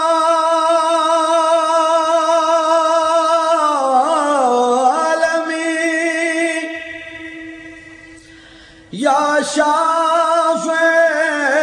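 Male voice singing an Urdu naat: one long held note with a wavering tone and a falling-and-rising turn about four seconds in, fading away, then a new phrase starting abruptly about nine seconds in.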